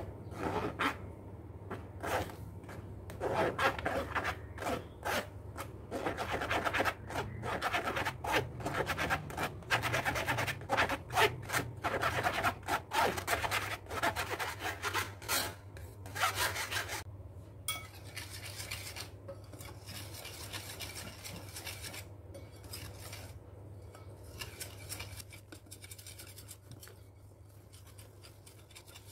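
Flour being rubbed through a stainless steel mesh sieve with a spatula: quick, repeated rasping scrapes against the wire mesh that turn fainter about 17 seconds in. A low steady hum runs underneath.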